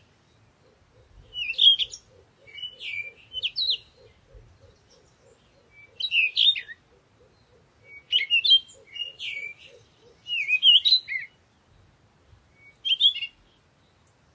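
A songbird singing short phrases of quick chirps and warbles, one phrase every couple of seconds. A faint soft ticking, about three a second, runs underneath until about ten seconds in.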